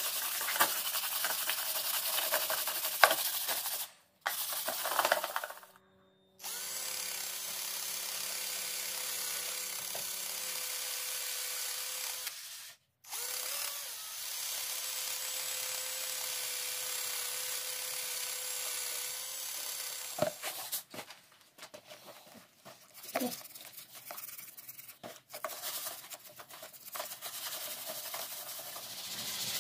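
Engine parts being cleaned: a hand-held power tool runs in long steady stretches with one short stop in between. Near the end a piston and connecting rod are scrubbed with a brush in a basin of dark cleaning liquid, giving irregular scraping and splashing.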